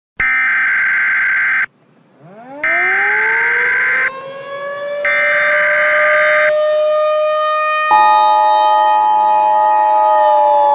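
Three harsh buzzing alarm blasts, each about a second and a half long. Under the second blast a civil-defense siren winds up from low pitch and holds a steady wail. A second buzzing alarm tone joins the siren about eight seconds in.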